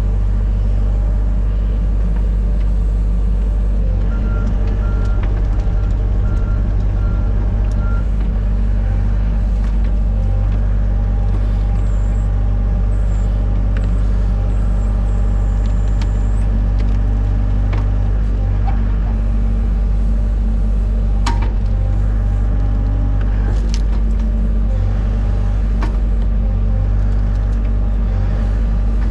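Excavator's diesel engine running steadily under work, with a few sharp knocks now and then.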